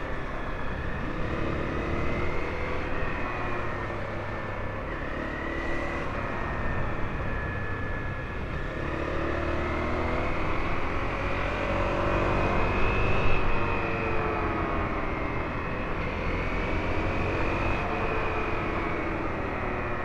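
A 2013 Honda CRF250L's single-cylinder four-stroke engine running under way, its revs rising and falling with the throttle.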